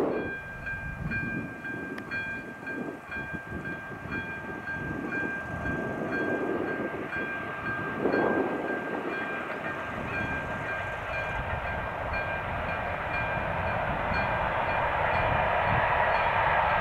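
Freight train hauled by a Škoda 'laminátka' electric locomotive approaching, its rumble and wagon noise growing steadily louder. A steady high-pitched whine runs through it.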